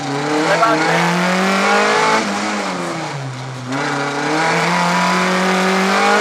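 Rally car engine heard from inside the cockpit under hard acceleration, its pitch climbing. About two seconds in the revs drop, stay low for a second or so, then climb again as it pulls up through the rev range.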